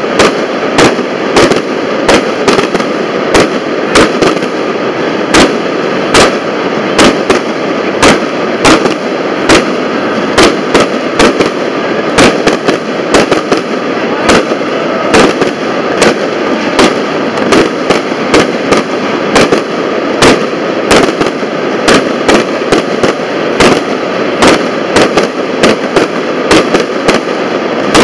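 Aerial fireworks going off in a rapid, irregular string of sharp bangs, about two or three a second, over a steady background noise.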